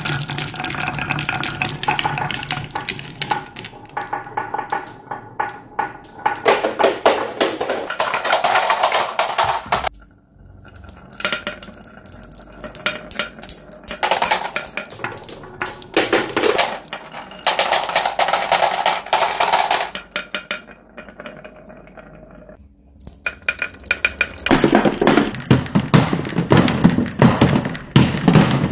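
Marbles rolling down carved wooden slope tracks, clicking against one another and the wood in a steady clatter. Near the end they drop into a plastic toy dump truck bed, where the clatter is densest.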